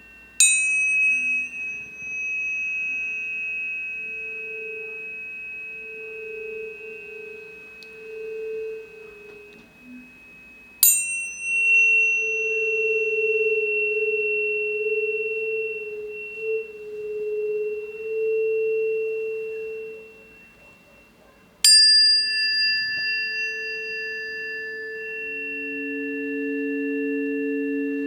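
Planetary tuning forks struck three times, about ten seconds apart, each strike a sharp metallic tap followed by several long, steady ringing tones, the lower ones wavering as they sustain.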